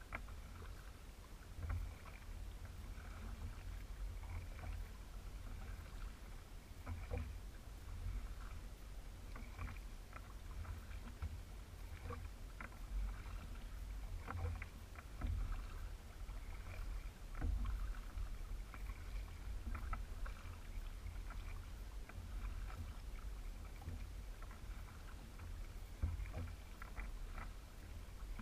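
Kayak paddle strokes in calm river water, with the blades dipping in on alternating sides and small splashes and drips between strokes. A low rumble runs underneath.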